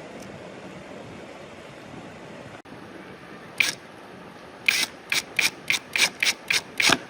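Hand-worked scraping strokes: one stroke, then a quick run of about eight more at three to four a second, over a steady hiss.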